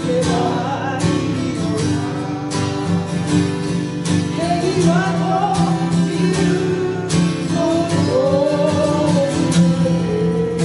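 Live acoustic song: an acoustic guitar and a second plucked string instrument playing chords under a singing voice that carries a wavering melody.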